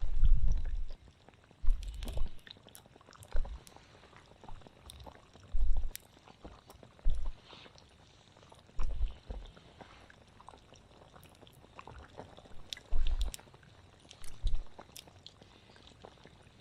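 Pot of water at a rolling boil over a wood campfire, bubbling in loud, deep bursts every second or two. Sharp crackles and pops from the burning wood run between them.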